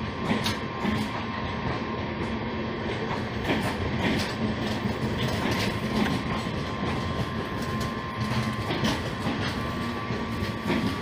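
LHB passenger coaches rolling slowly past a station platform: a steady rumble of wheels on rail, with short clicks as the wheels cross rail joints, irregularly every half second to a second.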